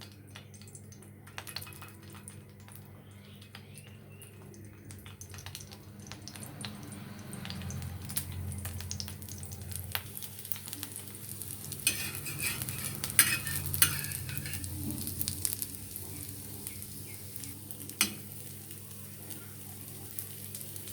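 Potato vadai frying in hot oil, sizzling steadily, with a few sharp clinks of a utensil against the pan around the middle and one more near the end.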